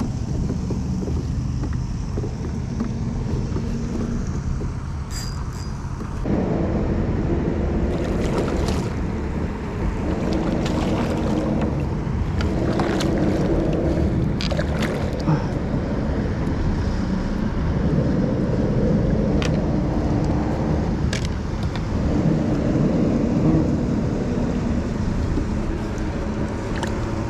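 Wind buffeting the microphone over open water, with water sloshing around the kayak. A low hum comes and goes, and there are scattered light knocks.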